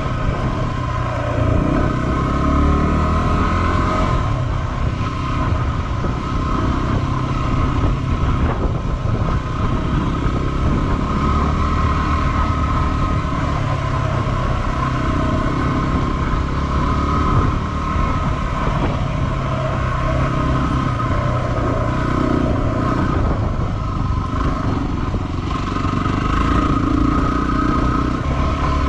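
Yamaha WR250R's 250 cc single-cylinder four-stroke engine running as the dual-sport bike is ridden along a sandy dirt trail, its pitch rising and falling a little with the throttle.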